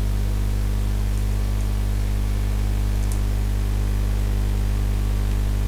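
Steady electrical mains hum with its overtones and a constant hiss in the recording, with a few faint clicks.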